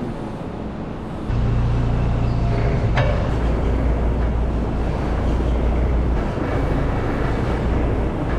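A low, steady engine drone comes on abruptly about a second in and keeps running, with one sharp click or clank near the middle.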